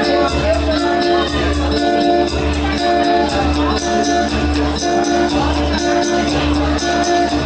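Live music from a Roland keyboard with a steady programmed beat, low bass pulses about twice a second and fast high percussion ticks over held chord notes, with a man singing into a microphone.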